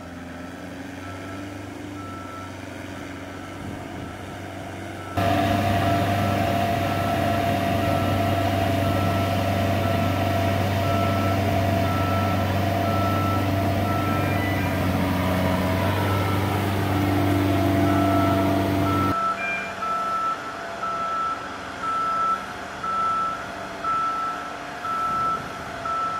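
Heavy multi-axle transporters' engines running with a steady drone, and a backup alarm beeping in an even series. The engine noise jumps louder about five seconds in and drops back later. Near the end it swells and fades roughly once a second.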